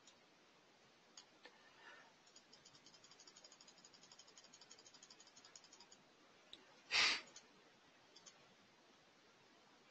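Faint rapid, evenly spaced clicking for about three and a half seconds, with a few scattered clicks around it, and a short loud noisy burst about seven seconds in.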